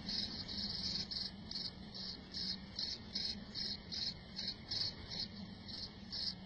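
Cricket chirping in a steady rhythm, about two to three chirps a second, over a low steady hum.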